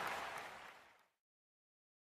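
Applause fading out over about a second, then silence.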